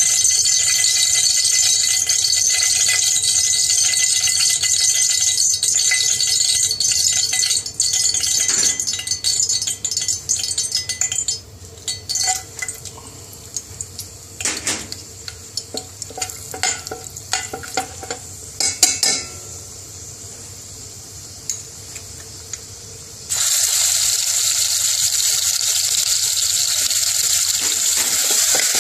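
A steady hiss at first, then a quieter stretch with clinks of whole spices and a metal spoon against a stainless steel pot. A bit over twenty seconds in, a sudden loud sizzle starts as garlic-ginger paste hits the hot oil and is stirred.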